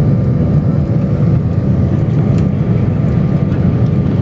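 Jet airliner's engines and airframe heard from inside the passenger cabin as the plane rolls along the runway: a loud, steady low rumble with a faint whine above it.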